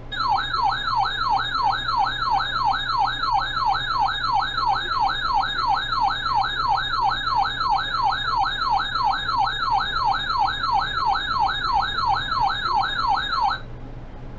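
Electronic emergency-alert attention tone broadcast over the radio: a loud, siren-like warbling tone that sweeps up and snaps back down about two and a half times a second, then cuts off abruptly near the end. It sits in the attention-signal slot of an Emergency Alert System warning.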